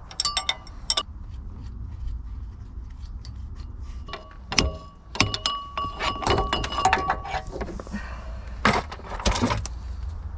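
Metal clinks, knocks and short ringing clinks as the drive coupler is worked off the flywheel and lifted away, with a loud knock about halfway through and a run of ringing clinks after it.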